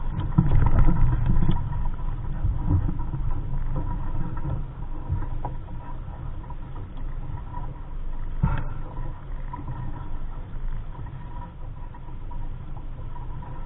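Gusty low rumble of wind buffeting the microphone aboard a small sailboat, strongest in the first couple of seconds, with one sharp knock about eight and a half seconds in.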